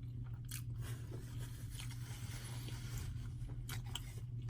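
Close-miked chewing of a mouthful of lasagna roll-up: irregular wet mouth clicks and smacks, over a steady low hum.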